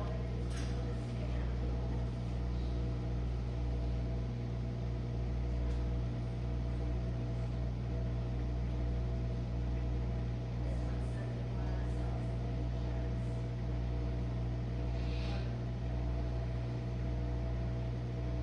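Jenn-Air dishwasher's drain pump running with a steady hum, draining the tub at the start of a quick-wash cycle.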